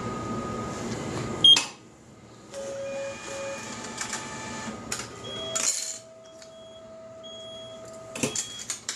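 Japanese railway ticket vending machine in use: a rumbling noise cut off by a loud sharp clack about a second and a half in, then two short electronic beeps, a long steady electronic tone and a few mechanical clicks near the end.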